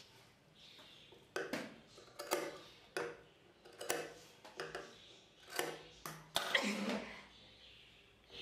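Scattered light clicks and taps with soft rustling: a pair of tailoring scissors and blouse fabric being handled on a sewing-machine table.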